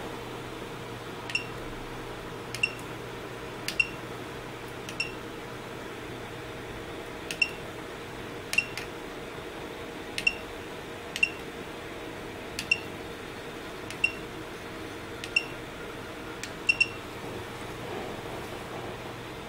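Push-button keys on a home-built ProtoPhone GSM phone pressed one at a time, about fourteen presses. Each press gives a sharp click and a short high beep from the board's buzzer, confirming the keypress, with a pair of quick presses near the end.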